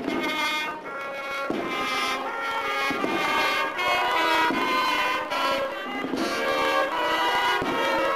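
A cornet-and-drum band (banda de cornetas y tambores) playing a march: massed cornets sounding a held melody over drum beats, starting suddenly at the outset.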